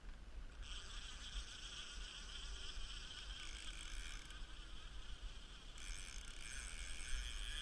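Fishing reel buzzing under a fish on the line, starting about half a second in and changing in tone abruptly a few times.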